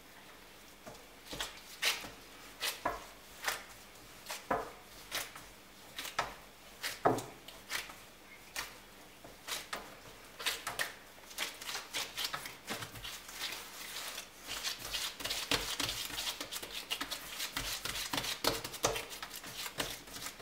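Yeast dough being kneaded by gloved hands on a floured worktop: soft knocks and slaps of the dough against the counter, about one a second at first, then quicker, busier squeezing and rubbing from about halfway.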